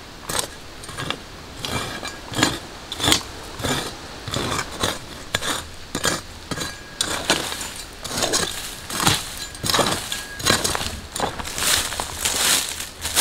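A leafy branch swept and scraped over the ashes and dirt of a dead campfire, in irregular brushing strokes about one or two a second.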